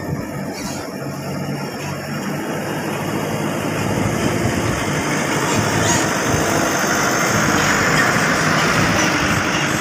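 Loaded dump truck's diesel engine running as the truck drives up and passes close by, growing louder over the last few seconds.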